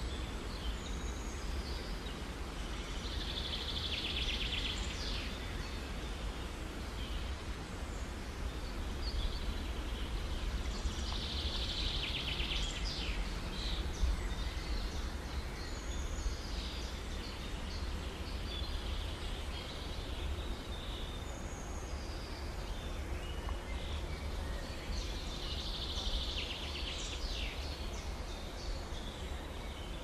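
Small birds singing: a trilled phrase of about two seconds comes three times, with short high chirps between, over a steady low outdoor rumble.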